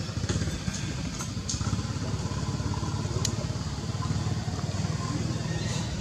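A small engine running steadily with a low rumble, with a few short sharp clicks over it.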